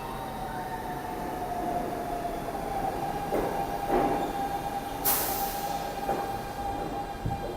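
New York City subway train in the station, with a steady high-pitched squeal or whine from the wheels and motors. There are a few knocks, and a sharp hiss of air about five seconds in.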